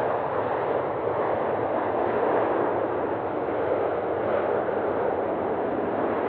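Jet noise from a landing Airbus A340-300's four CFM56 turbofans: a steady, dense rumble that holds without a break.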